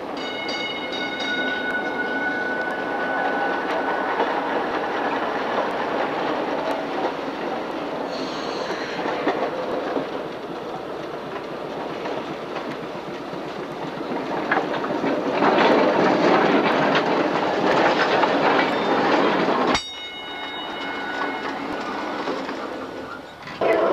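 Electric streetcar running along its rails: a steady rolling rumble with wheels clacking over the rail joints, loudest and busiest as the car passes close by in the second half. A high ringing tone sounds briefly at the start and again near the end.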